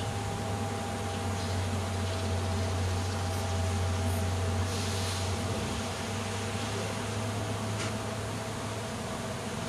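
A dense swarm of western honeybees in flight, a steady buzzing hum, with a brief rush of hiss about halfway through.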